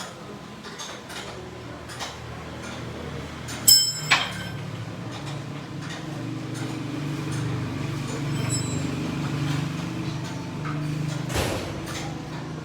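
Two sharp metal clanks about half a second apart, the first ringing briefly, then a steady low hum with another knock near the end.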